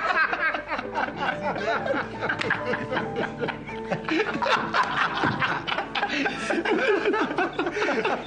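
Several men laughing and chuckling together, over background music whose held notes come in about a second in.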